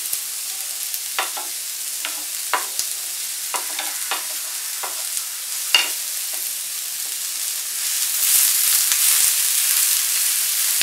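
Chopped onions sizzling in oil in a nonstick frying pan as they are browned, with short knocks and scrapes of a spatula against the pan. The sizzle grows louder about eight seconds in as the onions are stirred.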